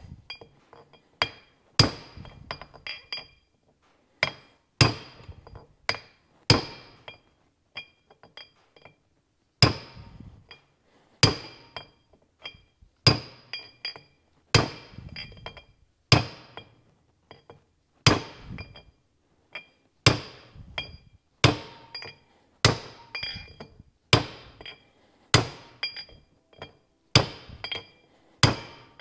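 A 3-pound hammer striking a driver to seat a new wheel bearing race into a cast trailer brake hub: heavy blows about one every one and a half seconds, each with a bright metallic ring, with lighter taps in between. The race goes in snug.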